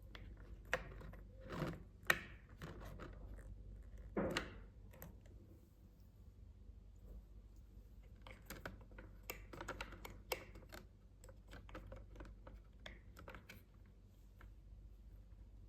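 Small plastic toy pieces being handled, clicking and tapping against each other, with a few louder knocks in the first five seconds and a run of quick clicks a little past the middle.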